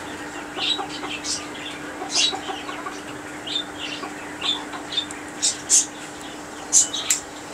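Poultry calling in a farm's pens: short, high clucks and chirps about once a second, the sharpest ones near the end, over a steady low hum.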